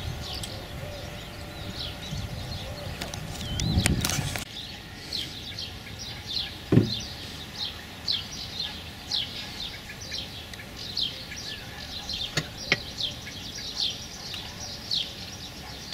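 A bird calling over and over in short, downward-sliding chirps, about two a second, against quiet outdoor ambience. A dull thud comes about seven seconds in, and a couple of sharp clicks near the end.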